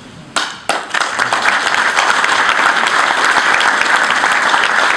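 Audience applauding: a few separate claps, then dense, steady applause from about a second in.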